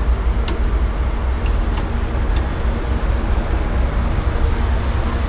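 Steady low motor-vehicle rumble, with a few faint, scattered clicks of a wrench working on the vehicle's suspension near a rubber bushing.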